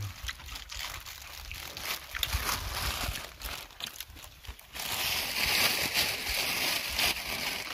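Raw leafy greens crackling and crunching as they are handled and eaten by hand from a bowl: scattered crisp crinkles and crunches, then a steadier rustle from about five seconds in that stops shortly before the end.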